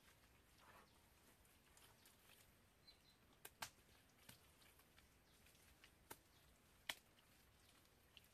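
Near silence, broken by a handful of faint, sharp clicks scattered through it, two of them close together about three and a half seconds in.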